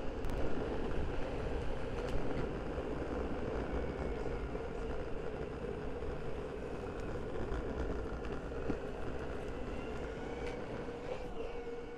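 Skateboard riding along: a steady whine with overtones over a continuous low rumble of wheels and wind on the microphone.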